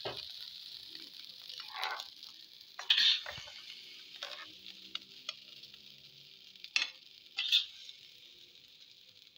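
Fried rice sizzling in a hot wok, slowly growing fainter, with a handful of short scrapes and knocks of the spatula against the wok.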